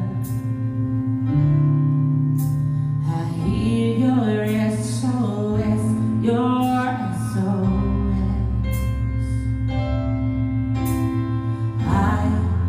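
A woman singing a contemporary Christian worship song with instrumental accompaniment.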